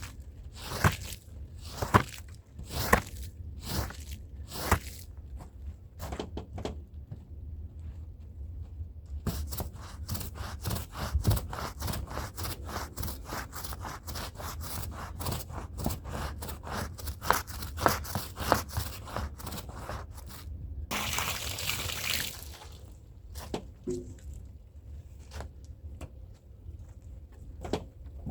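Stiff hand brush scrubbing a wet, soapy rug. Separate strokes come about once a second at first, then a fast run of back-and-forth strokes follows from about nine seconds in until about twenty. A short hiss comes just after that, then a few scattered clicks.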